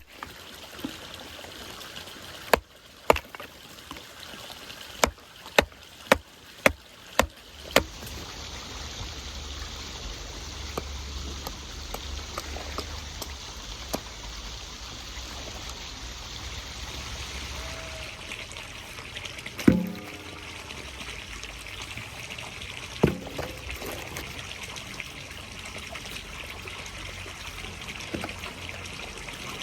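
Water trickling steadily, with a quick run of about eight sharp knocks in the first eight seconds and two single thumps later on.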